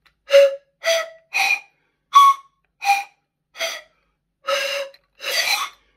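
Toy pan pipes made of clear plastic tubes, blown across the open tops: eight short breathy notes, each at a different pitch. The last two notes are longer and windier. It is a simple attempt at a tune.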